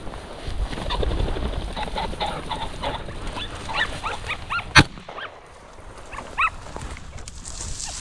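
A single shotgun shot about five seconds in, the loudest sound, with rustling through tall dry grass and a few short high-pitched animal calls before and after it.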